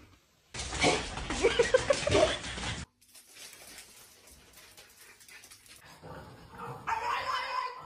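A dog whining and barking, in two loud stretches: one from about half a second in lasting some two seconds, and another near the end.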